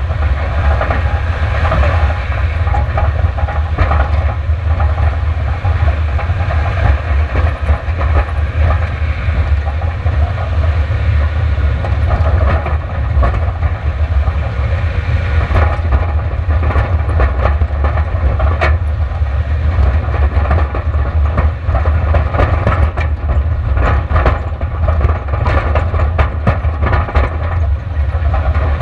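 Onboard sound of a Subaru Outback running fast over a rocky gravel dirt track: a steady deep rumble of engine, tyres and wind, with frequent ticks and clatter of gravel and rattling from the car, thicker near the end.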